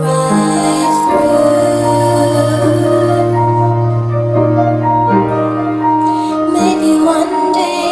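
Background music with long held chords over a slowly changing bass note.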